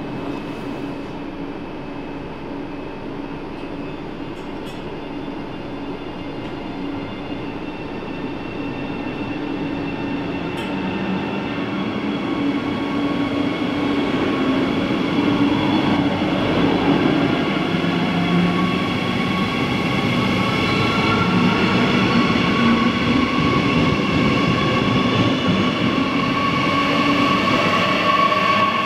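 Electric push-pull train of double-deck coaches pulling out of an underground station and rolling past, growing steadily louder. An electric whine at several pitches rises out of the rumble as the Class 147 electric locomotive pushing at the rear comes past near the end.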